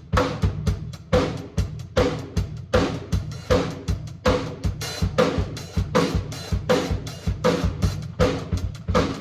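Drum kit playing a steady groove: bass drum and snare, with the strongest snare hits about every three-quarters of a second.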